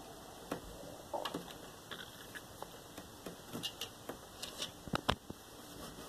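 Scattered light taps and scratches of two cats batting their paws at each other through the gap under a closed door, with two sharper clicks about five seconds in.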